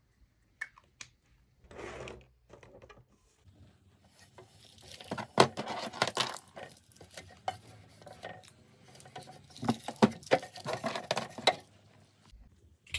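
Clear acrylic makeup organizer being handled and moved about on a wooden dresser top, hard plastic clicking and knocking, with small items clattering. The clatter is sparse at first and gets busy from a few seconds in.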